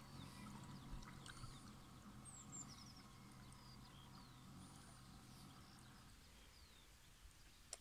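Near silence: faint scattered chirps of small birds over a faint low hum that fades out about six seconds in, with a single click near the end.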